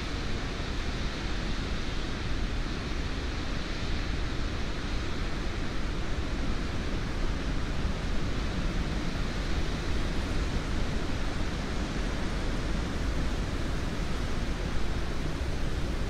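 Wind blowing through trees, a steady rushing with only small swells, recorded with binaural microphones.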